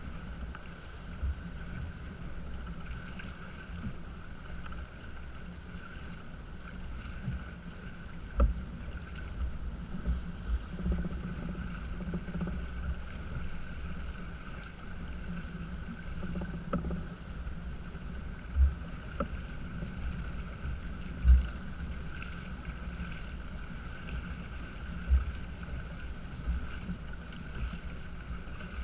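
A small sailing yacht under way, heeled over with water rushing past the hull and wind buffeting the microphone. Occasional short low thumps, the loudest about 21 seconds in.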